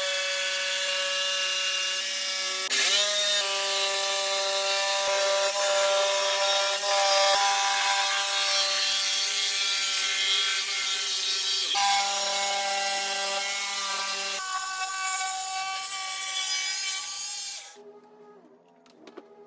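AEG corded jigsaw cutting a circle through pine boards, its motor whining steadily as the blade saws through the wood, the pitch and tone shifting a few times as the cut curves round. The saw stops near the end.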